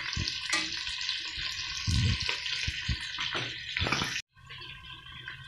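Onions sizzling as they fry in ghee in a pot, with a few dull knocks. The sound cuts out suddenly about four seconds in and comes back fainter.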